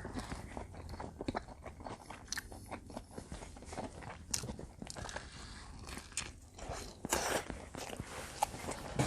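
Close-up mouth sounds of someone eating combination pizza: bites into the crust crunching and wet chewing, with irregular sharp mouth clicks. A longer, louder crunch comes about seven seconds in.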